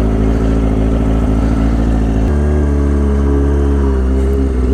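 Motorcycle engine running steadily at a standstill, with its tone changing abruptly about two seconds in and then holding steady.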